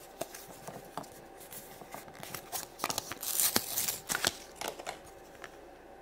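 Plastic packaging crinkling and tearing, with small plastic clicks, as a toy blind jar is opened by hand. The handling is loudest about three and a half seconds in.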